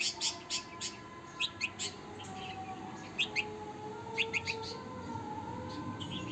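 Baby bulbul calling: short, sharp chirps in quick clusters of two to four, repeated every second or two.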